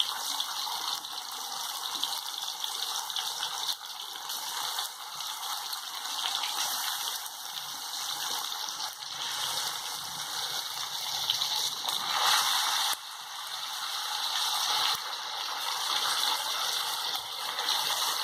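Hot oil and ginger-garlic paste sizzling steadily in a pot as raw chicken pieces are added. The sizzle swells about twelve seconds in and drops suddenly a second later.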